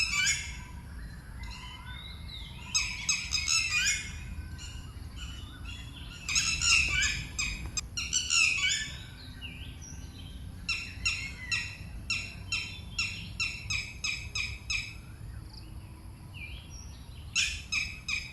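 Red-wattled lapwing giving its loud alarm calls in repeated bouts of sharp, shrill notes, with a fast, even run of about three notes a second in the second half. A steady low rumble lies underneath.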